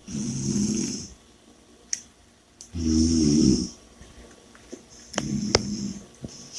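A person snoring in a slow, even rhythm: three snores, each about a second long and about two and a half seconds apart, with a few faint clicks in the pauses.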